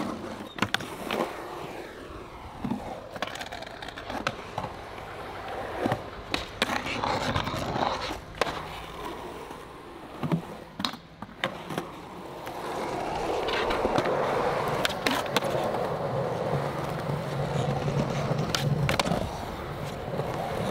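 Skateboard being skated on concrete: the board gives repeated sharp clacks, with the wheels rolling in between. About two-thirds of the way through, the roll of the wheels turns steady and louder.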